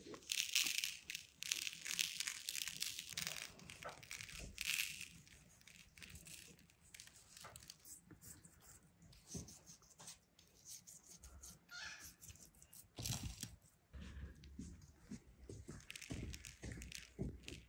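Hands rubbing salt over the scales of a scored grass carp on a wooden board: a gritty rustling, loudest in the first few seconds, then softer scattered rubbing. A few soft knocks near the end as spice is pinched from a glass bowl and sprinkled on.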